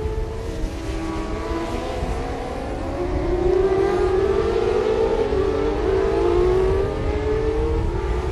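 Several 600 cc supersport racing motorcycle engines running at high revs together, their overlapping pitches sliding up and down. From about three seconds in they get louder and climb steadily in pitch, easing off again near the end.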